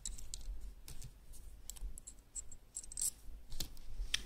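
Small metal parts of a hand-held coil-winding jig clicking and clinking as they are handled, a scattering of light, irregular clicks.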